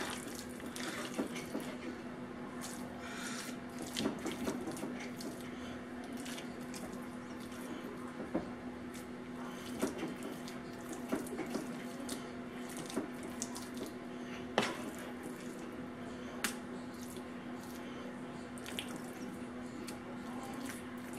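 A spoon scooping a thick, wet chicken-and-noodle casserole mixture out of a mixing bowl and pressing it into a casserole dish: soft squishes and scrapes with a few sharp taps of the spoon on the dishes. A steady low hum runs underneath.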